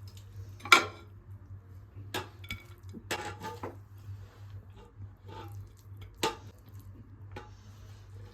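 Kitchen utensils and dishes clinking: a few separate sharp clinks and knocks, the loudest about six seconds in, over a faint low steady hum.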